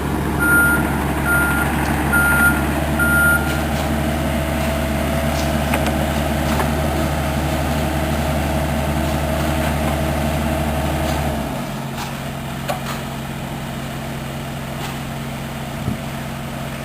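Heavy construction vehicle's diesel engine running, with its reversing alarm beeping about one and a half times a second for the first few seconds and then stopping. About two-thirds of the way through, the engine note drops back to a quieter, lower idle.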